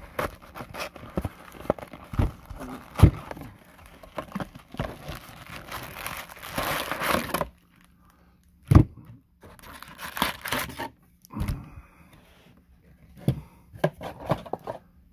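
A cardboard trading-card box being torn open, then crinkly foil card packs handled and stacked. There are long stretches of tearing and crinkling, the longest and loudest ending about halfway, and a few sharp knocks as the packs and box are set down.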